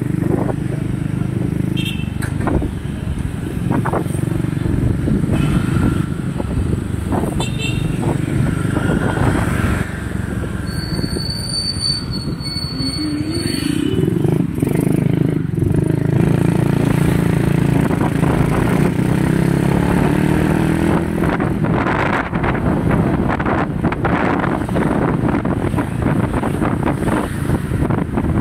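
Motorcycle engine running while riding through street traffic, its pitch rising about halfway through as it speeds up.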